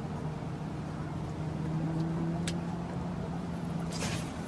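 A motor's steady low hum, a little louder in the middle and stopping near the end. A short click comes about halfway, and a brief hiss near the end.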